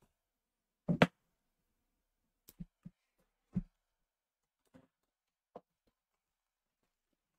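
Knocks and clicks from a gold aluminium Panini Flawless card case being handled on a table: one sharp knock about a second in, a few light clicks, a duller thump, then two faint clicks.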